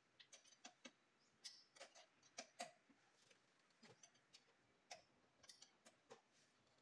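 Faint, irregular clicks and light taps, a dozen or so sharp ticks spread unevenly over several seconds, from hand work on car parts: tools, screws and plastic trim being handled.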